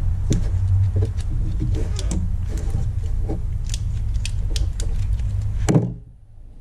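Gloved hands working a rubber radiator hose and its metal clamp onto the thermostat housing: scattered small clicks, rattles and rubbing over a steady low hum. Near the end there is a louder knock, and then the sound drops away suddenly.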